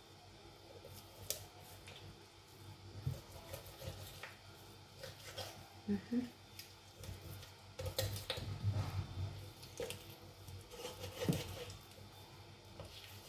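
A knife cutting up a whole raw chicken on a board: irregular clicks and knocks of the blade and the meat being pulled apart by hand, busiest in the second half.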